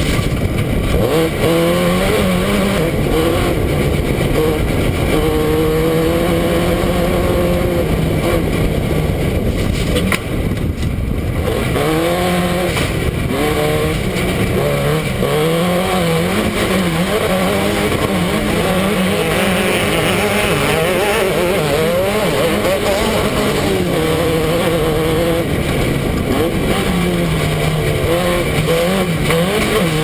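Off-road race car's engine heard from on board while racing across desert terrain, running hard with its pitch rising and falling as the throttle is worked, over constant rushing noise. Near the eleventh second the engine drops away briefly, then revs back up.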